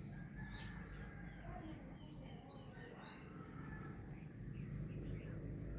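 Faint outdoor ambience: a steady high-pitched insect drone, with scattered short bird chirps throughout.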